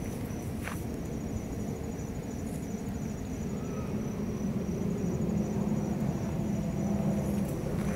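Steady outdoor background: a low rumble that grows louder over the last few seconds, with a faint, evenly pulsing high-pitched trill throughout.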